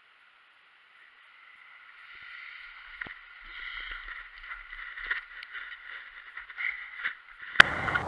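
Muffled rush of wind and movement on the pilot's point-of-view camera during a paraglider tow launch, rising from near silence as the wing comes up overhead, with scattered knocks and a sharp click near the end.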